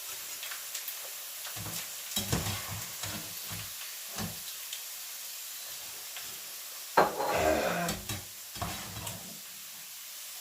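Dried macaroni frying in hot cooking oil: a steady sizzle with scattered pops and knocks as it is stirred in the pan, with a louder stretch of stirring about seven seconds in. The popping shows the pasta is still puffing; once it stops popping it is done.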